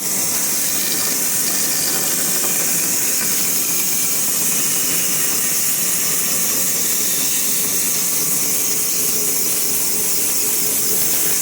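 Power saw cutting hardwood: a loud, steady, high-pitched screeching whine of the blade in the timber, unchanging throughout.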